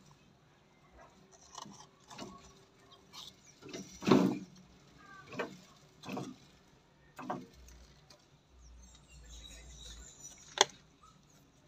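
Water poured from a thin plastic cup onto the potting soil of a newly transplanted rose, in irregular splashes and rustles as the cup is tipped and handled. A single sharp click near the end.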